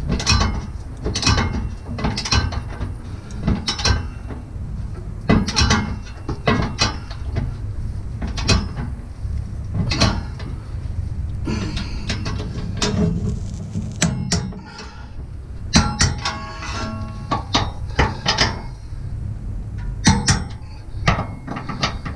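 Hand socket ratchet clicking in short strokes about once a second as the trailer hitch's mounting bolts are run up tight.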